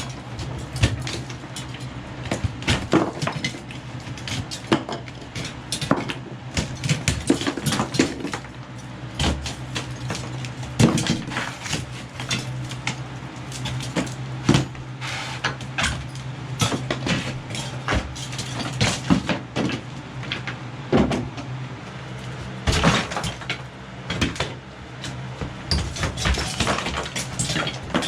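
Irregular knocking and clattering of hand work, many sharp knocks at uneven intervals, over a steady low hum.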